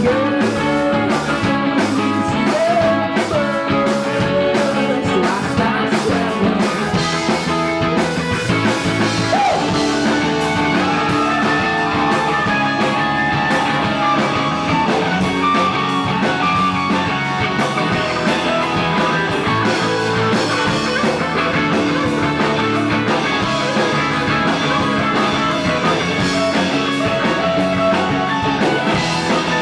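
Rock band playing live: an instrumental passage with guitar over bass and drums, the lead line bending in pitch.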